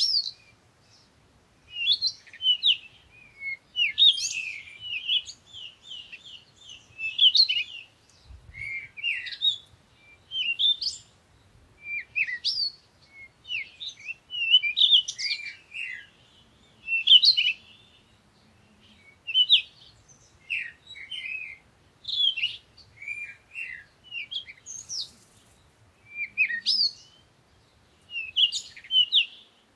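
Songbirds singing: short, varied chirping phrases with quick up-and-down pitch glides, one every second or two.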